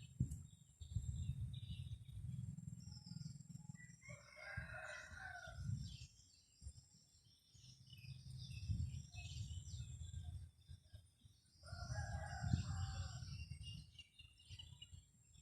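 A rooster crowing twice, about seven seconds apart, over wind rumbling on the microphone, with small birds chirping.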